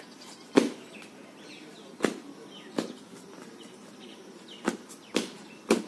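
A child's sneakers slapping on a paved path: about six short, sharp footfalls, irregularly spaced, as he moves across it in a running game. Faint bird chirps sound behind them.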